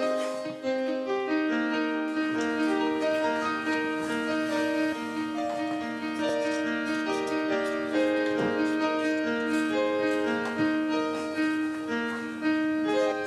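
Background piano music: a calm piece of long held notes.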